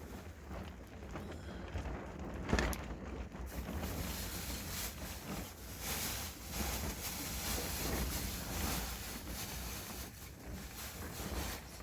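Wind buffeting the microphone in gusts, with a deep rumble, and a single sharp knock about two and a half seconds in.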